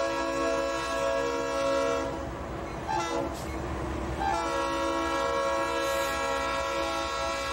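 Leslie air horn on Union Pacific SD90MAC-H diesel locomotives sounding a multi-note chord: a long blast that stops about two seconds in, a short toot about a second later, then another long blast. Beneath the horn runs the steady low rumble of the locomotives passing close by, notched out to full throttle (run 8) as they pull away.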